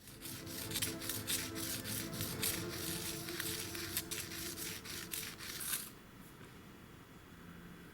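Background music: held tones under a busy clicking, rustling pattern, dropping away about six seconds in to a faint hum.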